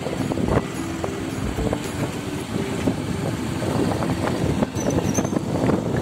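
Motorcycle engine running while riding, mixed with wind buffeting the microphone in a dense, fluttering rumble.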